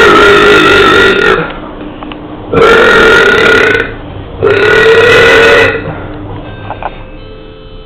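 A person letting out three long, loud belches in a row, each held steady for more than a second, with short pauses between them. After the third, only faint background noise and a few light clicks.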